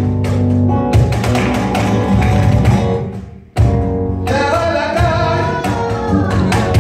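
Live flamenco music: guitar and bass with percussion, and the dancer's footwork striking the stage in quick sharp taps. The music breaks off briefly about halfway, comes back in all at once, and a man's voice then sings a long, wavering flamenco line.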